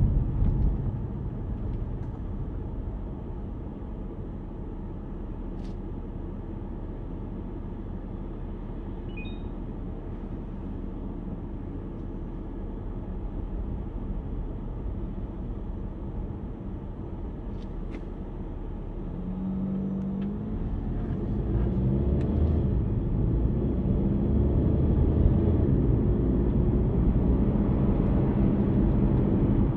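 Steady low rumble of tyre, road and drivetrain noise from a Hyundai Kona Hybrid driving through city streets, heard inside the cabin. The rumble grows louder about two-thirds of the way in as the car picks up speed or load.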